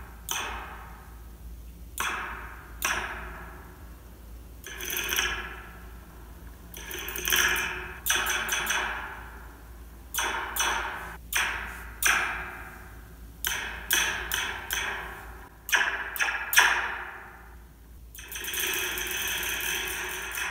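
A stretched metal Slinky struck again and again with a fork, heard through a contact microphone clipped to the coils. About fifteen separate hits each ring out as a falling 'pew' sweep, the Star Wars blaster-style laser sound. Near the end the hits run together into one dense continuous stretch.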